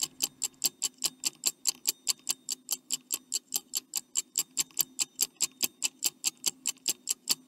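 Ticking stopwatch sound effect counting down: fast, even ticks, about five a second.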